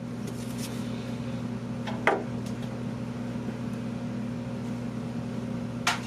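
A steady low electrical hum, like a running fan or appliance motor. A single metallic tool clink comes about two seconds in, and a few more clinks of tools near the end.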